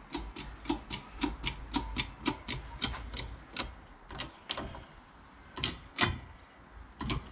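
Hand-pumped hydraulic shop press being worked to force a seized rear lower suspension bush out of a hub carrier: sharp clicks about three to four a second, slowing to a few scattered clicks in the last couple of seconds.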